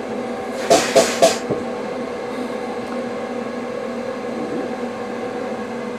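Wet vapor-blasting cabinet running with a steady hum from its machinery, with a short hissing burst about a second in.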